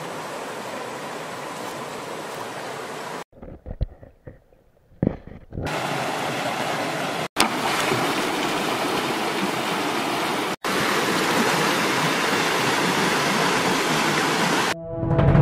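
Stream water rushing and splashing over rocks in a small cascade, steady, broken off abruptly a few times; about three seconds in it drops away for a couple of seconds, leaving only a few short faint sounds. Synthesizer music starts near the end.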